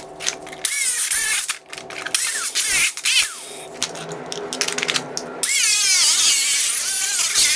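Angle grinder with a cutting disc slicing through a video projector's plastic housing: two short cuts, a stretch with the motor running free, then one long continuous cut from about five seconds in, its whine wavering as the disc bites.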